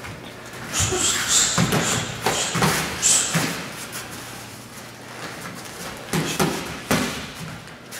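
Gloved punches and kicks landing on hand-held striking pads. There is a quick run of slapping hits from about one second in to about three and a half seconds, then three more hits near the end.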